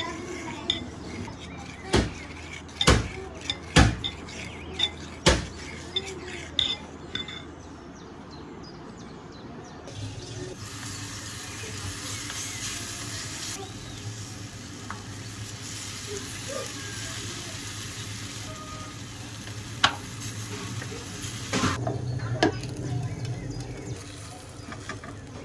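A metal spoon stirring oats into liquid in a clay bowl, with several sharp clinks as it knocks the bowl's side. After about ten seconds this gives way to batter sizzling steadily in a frying pan, with a single click near twenty seconds.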